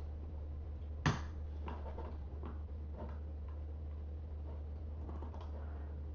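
One sharp click about a second in, then a few faint clicks, over a steady low electrical hum: computer clicks as the debugger is rerun.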